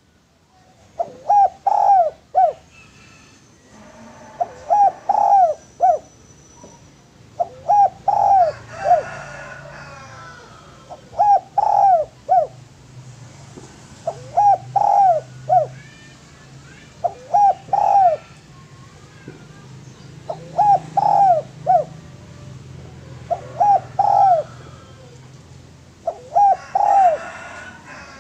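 Spotted dove (derkuku, tekukur) cooing its song over and over: a short phrase of three or four coos, repeated about every three seconds, nine times. Faint chirps of other birds sound behind it.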